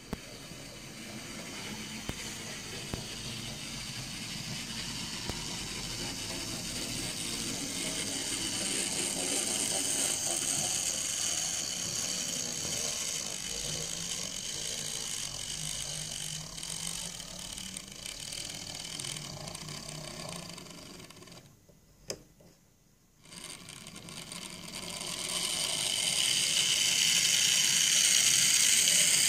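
Dapol Terrier 0-6-0 model locomotive running on a model railway, its small electric motor and gearing giving a steady high whine with the rattle of wheels on track. The sound drops almost to nothing for a couple of seconds about three quarters of the way through, then swells as the train and its vans pass close by.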